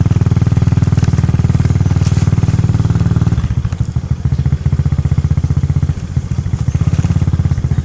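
Motorcycle engine running under way, with a rapid low pulsing. About three and a half seconds in, the engine eases off and runs a little quieter.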